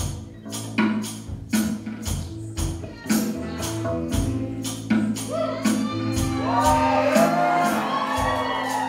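Live band music with a steady percussive beat over a bass line. About halfway in, high notes that slide up and down join in over it.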